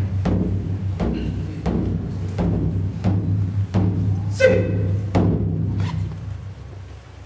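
Japanese taiko drums struck with wooden sticks: heavy strikes about twice a second over a constant deep boom from the large drum, dying away over the last second or so. A brief pitched sound cuts across about four seconds in.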